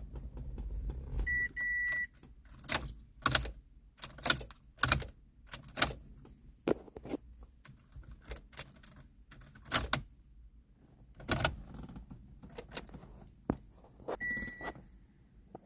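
Car keys jangling and clicking, with a short electronic beep about a second in and another near the end. No starter motor or engine is heard: the Renault Symbol is not cranking.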